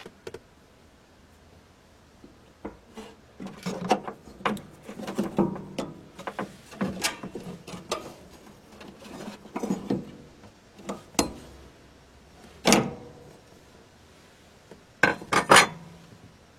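Irregular knocks, clicks and rubbing of objects being handled. There is a sharp clack near 13 seconds and a quick burst of clacks near the end.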